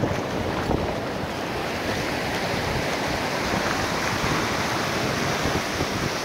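Ocean surf breaking and washing up the sand, a steady wash that swells a couple of seconds in, with wind buffeting the microphone.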